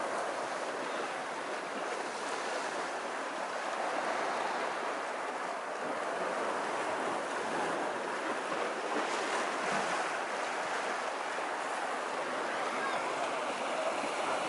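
Small sea waves breaking and washing up on a sandy beach, a steady surf hiss.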